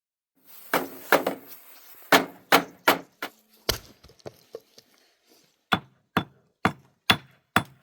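Repeated sharp strikes on wood, irregular at first and settling into a steady rhythm of about two blows a second near the end.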